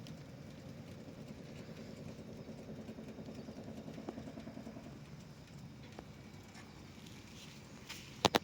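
An engine running steadily, swelling for a few seconds in the middle and then fading. A couple of sharp clicks near the end.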